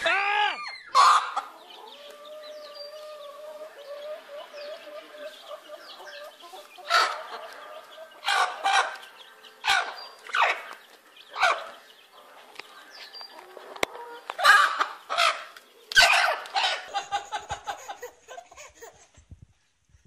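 Domestic hens clucking, with a run of short, loud calls repeated over several seconds.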